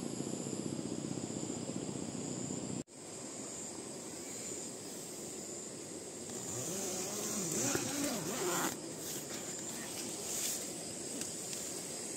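Outdoor ambience of insects keeping up a steady high-pitched buzz over a steady background hiss. The sound cuts out for an instant about three seconds in, and a short wavering call rises above it about two-thirds of the way through.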